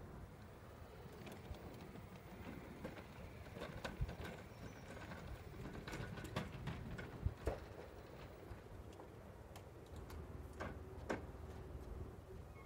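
Faint scattered knocks and clunks of footsteps and a loaded electric hand cart rolling over wooden deck boards, the sharpest two close together about halfway through, over a low steady rumble.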